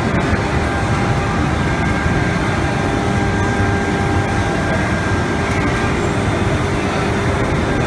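CNC router spindle machining a wooden door panel: a steady whine over a continuous rushing cutting noise.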